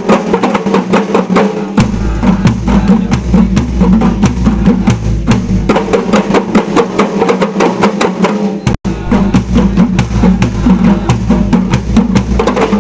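A kompang ensemble of handheld frame drums beating a fast, dense interlocking rhythm, with a large barrel drum. The sound cuts out for an instant about nine seconds in.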